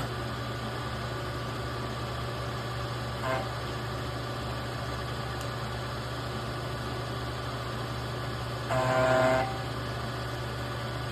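Milling machine motor and spindle running steadily with a low hum. A brief, louder pitched whine comes about nine seconds in.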